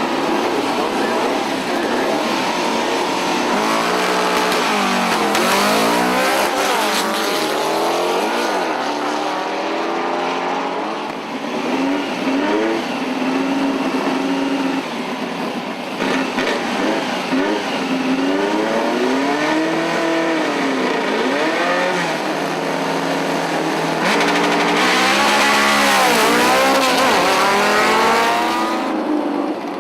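Volkswagen drag cars' engines revving hard, the pitch climbing and dropping again and again.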